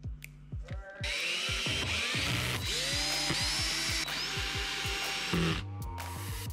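Cordless drill-driver running screws through alignment blocks into a plastic seat base, its motor speeding up and slowing in short runs from about a second in until near the end. Background music with a beat plays underneath.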